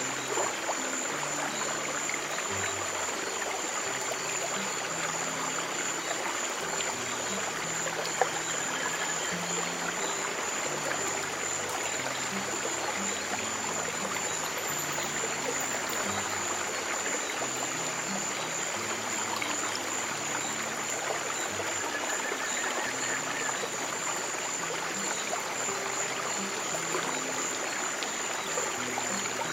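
Steady rushing of a flowing stream, with soft, low piano notes moving slowly beneath it.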